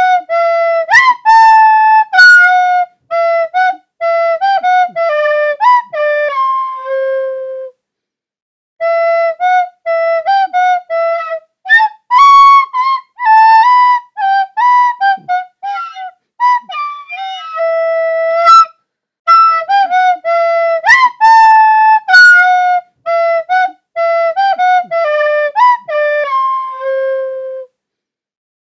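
Music: a solo melody on a flute-like wind instrument, played note by note in phrases separated by short breaks.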